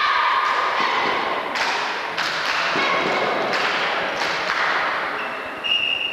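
A basketball bouncing on the gym's wooden floor, several thuds about half a second apart, in an echoing gym; a short steady high tone sounds near the end.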